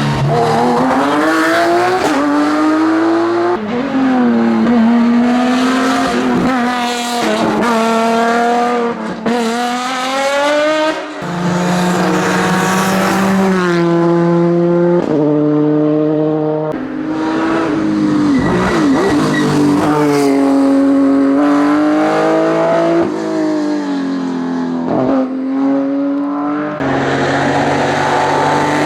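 Race car engines at full throttle, the pitch climbing hard and then dropping sharply at each gear change, over and over, with steadier, lower stretches in between.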